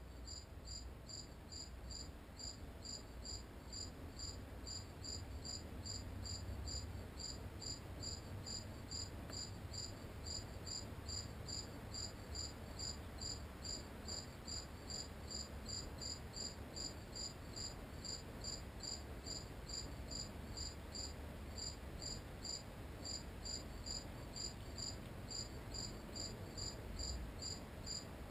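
A cricket chirping steadily in an even, unbroken rhythm of short high chirps, several a second, with a faint low rumble beneath.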